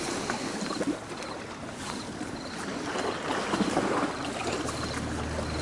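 Small waves lapping at the shore of a reservoir, with light rustling and faint clicks as gloved hands handle fishing line and a snap swivel. A low rumble builds near the end.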